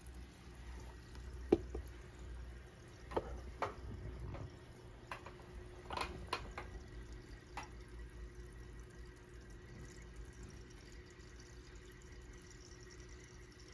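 Faint water drips plopping in a small glass aquarium: a handful of short drips scattered over the first half, the loudest about a second and a half in, over a steady low hum.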